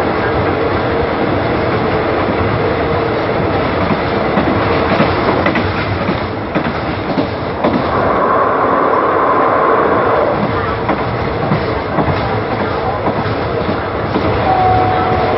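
Train running at speed, heard from on board: a steady rumble and rattle of wheels on the rails, with a brief steady whine near the end.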